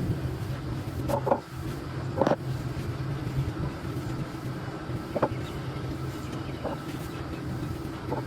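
A steady low hum, with a handful of short, sharp crunches of crumbly sand-cement pieces being crushed, spaced a second or more apart.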